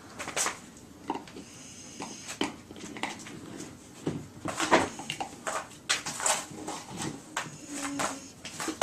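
A Doberman breathing with a wheeze: short, irregular, raspy breaths, some of them carrying a thin whistling tone. The owner says the wheeze is new and has not been heard from this dog for months.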